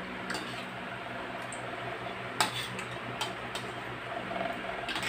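A spoon tapping against a bowl while eating soup: a few light clinks, the loudest about two and a half seconds in, over a steady low hum.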